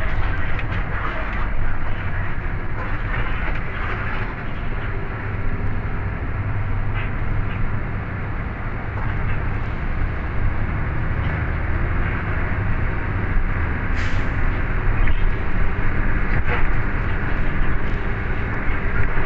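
Cabin noise of a coach bus on the move: a steady low engine and road rumble with small rattles, and a short hiss about fourteen seconds in.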